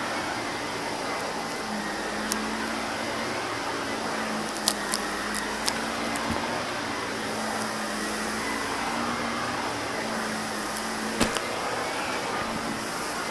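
Shark upright vacuum cleaner running steadily over carpet, with a handful of sharp clicks as crunchy bits of debris are sucked up.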